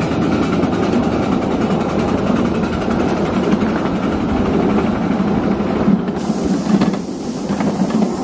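Miniature ride-on railway train running along its track, heard from a riding car: a steady rumble of wheels on rail with a quick clatter of clicks. The sound changes abruptly about six seconds in.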